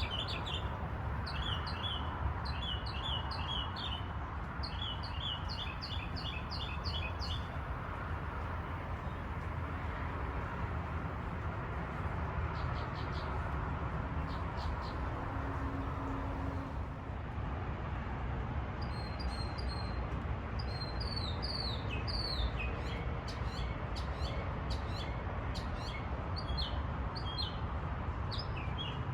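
Small birds chirping in quick repeated series over a steady low background rumble. The chirping thins out for several seconds in the middle, then comes back busier and more varied near the end.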